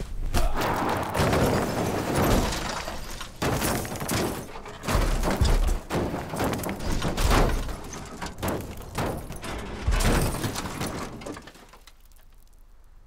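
Car crash: a long run of heavy impacts, crunching and breaking glass lasting about eleven seconds, which cuts off suddenly to quiet near the end.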